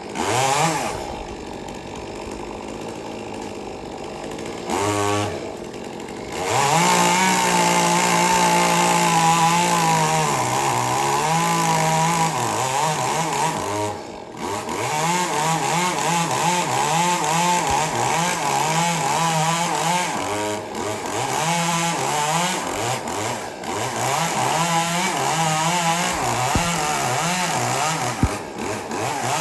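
Chainsaw running at a lower speed with a quick rev about five seconds in, then at high throttle from about six seconds on, its pitch wavering up and down as it cuts through wood. It drops back briefly about halfway through.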